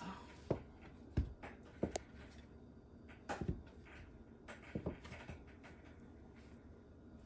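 Stainless steel bench scraper chopping through a ball of pastry dough and knocking down onto a floured silicone mat on the counter: a few soft, irregular knocks spread over several seconds.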